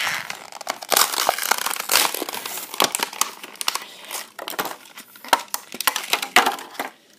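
Plastic blister packaging of a diecast toy car crinkling and crackling with many sharp snaps as the car is worked out of its card.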